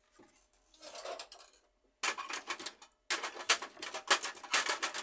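Plastic upper cover of an HP LaserJet 1300 laser printer being handled and fitted onto the printer's frame. A soft rustle about a second in, then from about two seconds a dense run of plastic clattering and clicking, with a brief pause near the middle.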